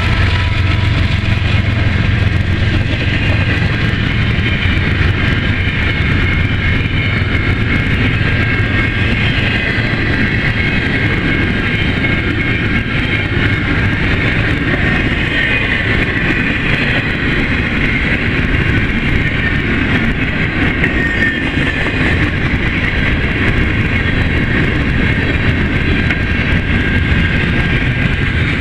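Double-stack container freight train rolling past close by: a continuous rumble and rattle of steel wheels on rail, with a faint high metallic ringing from the wheels in the middle. In the first second the diesel drone of the last head-end locomotive, a GE AC45CCTE, dies away as it passes.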